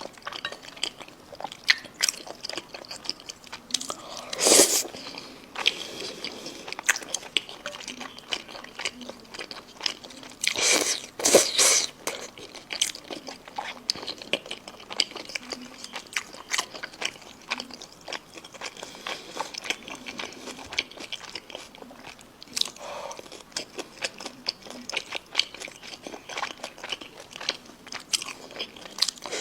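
Close-miked eating sounds: a person biting and chewing chicken, with many small wet, crunchy clicks and louder bites about four seconds in and again around eleven seconds in.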